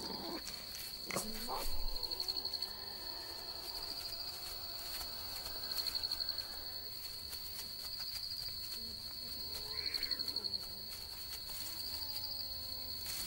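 Night insect chorus: crickets trilling steadily at a high pitch, swelling into louder pulsing stretches every few seconds. Faint whining animal calls come near the end.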